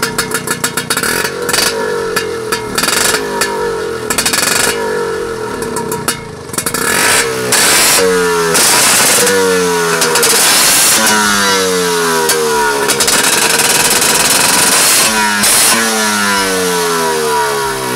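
Vespa PX150's single-cylinder two-stroke engine running through an aftermarket bigbox exhaust with twin tail pipes. In the first several seconds it idles with a fast popping beat, then it is revved again and again, each blip rising and falling back.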